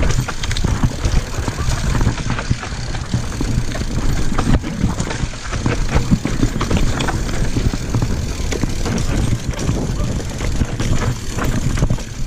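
Mountain bike riding down rough singletrack: steady wind rumble on the camera microphone, mixed with a constant clatter of small knocks and rattles from the bike over the rough ground.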